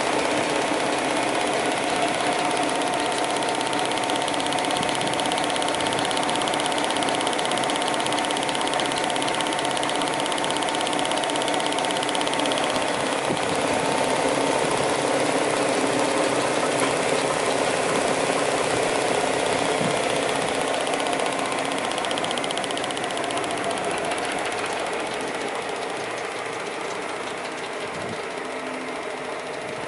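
SAFO DZXA belt-and-disc sander running with no workpiece on it: the electric motor and spinning sanding disc give a steady mechanical whirr with a few steady tones, growing a little fainter near the end.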